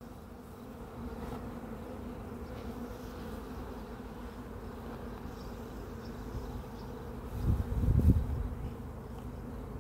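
Honeybees buzzing: a steady hum from the bees of a nucleus colony flying around the hive boxes. About seven and a half seconds in, a brief low rumble rises above the hum.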